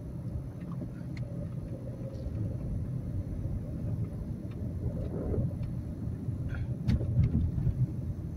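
A car driving, heard from inside its cabin: a steady low rumble of engine and road noise.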